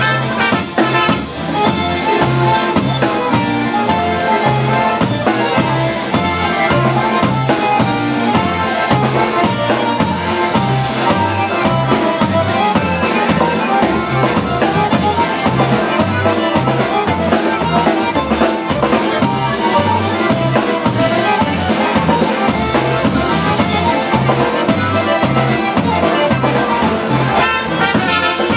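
Live band music: two trumpets playing the melody with a concertina and a piano accordion, over a drum kit keeping a steady beat.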